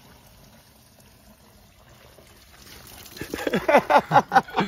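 Water hissing out of a cut, still-pressurized cold domestic water line, swelling after about two and a half seconds; a man cries out loudly over the last second and a half as the spray hits him.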